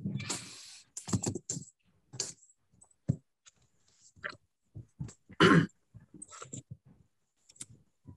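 Computer keyboard typing and mouse clicking: scattered light taps and clicks, with one brief louder noise a little past halfway.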